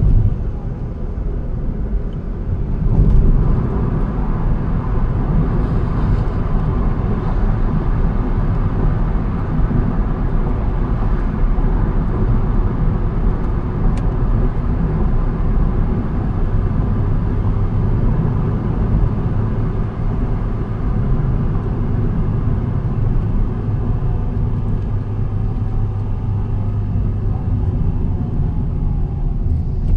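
A car driving on the road: a steady engine hum with tyre and road noise and a low rumble.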